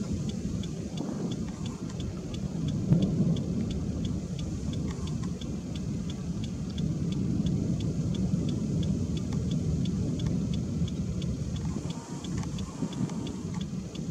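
Steady low wind rumble with a vehicle's hazard flasher ticking evenly, about three ticks a second.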